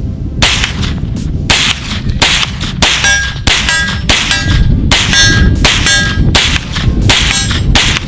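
Hi-Point 995 9mm carbine firing about a dozen shots at a steady pace, roughly one every half second to second. A metallic ringing follows several of the shots.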